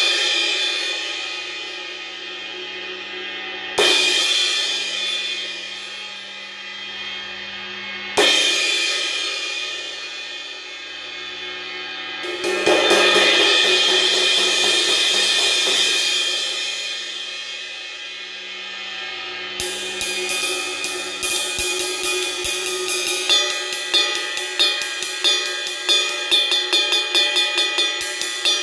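1986 Paiste Sound Creation 20-inch Bright Medium cymbal struck with a drumstick: two single crashes about four seconds apart, each left to ring and fade, then a swelling wash of quick strokes. From about twenty seconds in it is played in a steady ride pattern of about three or four strokes a second.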